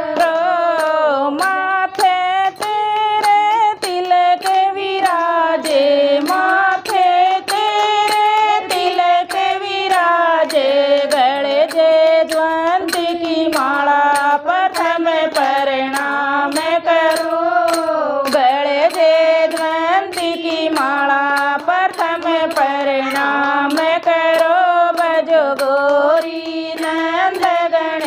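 Group of women singing a Haryanvi Ganesh bhajan, keeping time with steady hand claps about twice a second.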